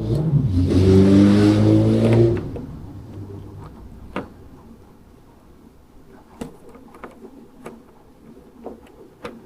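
A motor runs for about two seconds, its pitch rising slightly, then fades out. After that come scattered light clicks and taps of metal parts and tools being handled.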